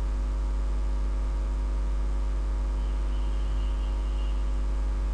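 Steady electrical hum on the recording: a deep drone with a ladder of evenly spaced higher tones above it, typical of mains hum picked up by the microphone.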